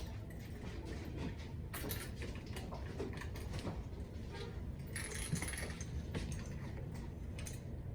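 Scattered light metallic clinks and rattles of tools and small bicycle parts being handled during work on a mountain bike's drivetrain.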